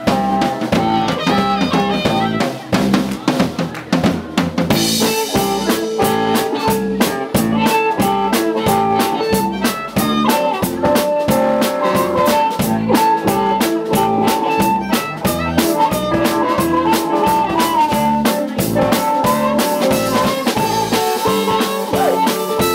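Band music: a drum kit keeping a steady beat under electric guitar and bass.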